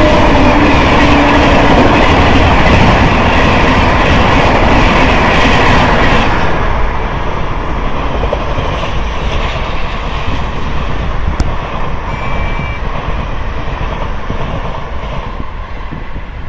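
Rajdhani Express LHB passenger coaches rushing past close at speed, a loud rumble and rush of wheels on the track. About six seconds in, the noise drops away to the fainter rumble of a train running on a farther track.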